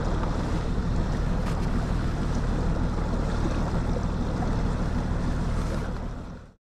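Bass boat's outboard motor running steadily, a low hum under wind noise and water rushing past the hull. The sound fades out quickly near the end.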